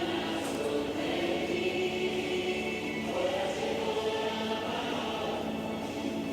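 Choir singing slow, held chords, with a new phrase starting about three seconds in.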